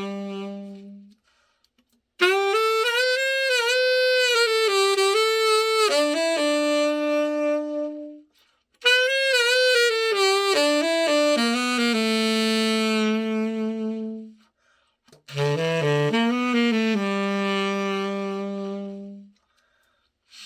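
Selmer Mark VI tenor saxophone being play-tested after a full overhaul. A held low note ends about a second in. Three melodic phrases follow, separated by short silences, and the last settles on a long held low note.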